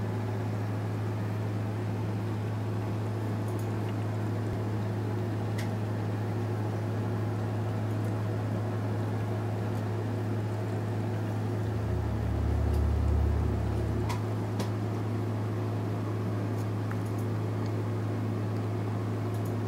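A steady low hum with a light hiss, like a running fan or appliance. About twelve seconds in, a deeper rumble swells under it for roughly two seconds, and a few faint ticks come through.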